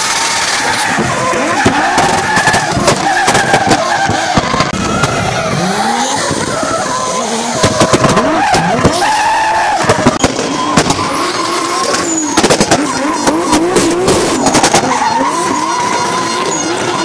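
Drift car's engine revving up and down as the car slides sideways, with tyres screeching. Sharp cracks come here and there.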